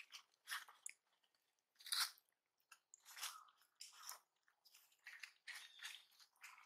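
A long-tailed macaque chewing and crunching food, a faint run of irregular crunches with short silent gaps between them.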